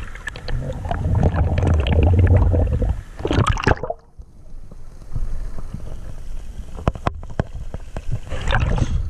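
River water splashing and sloshing around a camera at the surface, then the camera goes under about four seconds in and the sound turns muffled, with bubbling and scattered clicks underwater.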